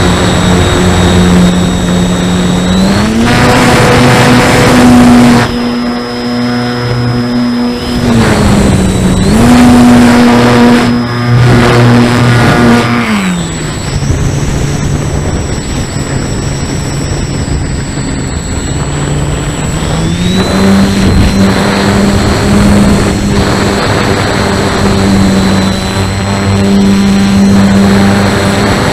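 Parkzone S.E.5a RC model plane's electric motor and propeller heard from on board: a steady droning hum with a high whine above it. It steps up in pitch with throttle about three seconds in, dips and rises again around nine seconds, falls off around thirteen seconds and climbs again around twenty seconds. Wind rushes over the microphone throughout.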